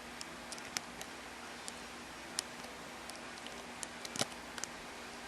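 Lock pick and tension wrench working the pins of a custom-made challenge lock: a dozen or so small, irregular metallic clicks and ticks as pins are lifted and set.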